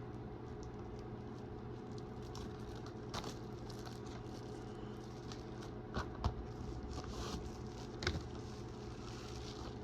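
A plastic DVD case being handled and opened: faint scrapes and rustles, with a few sharp plastic clicks a little past the middle and near the end, over a steady low hum.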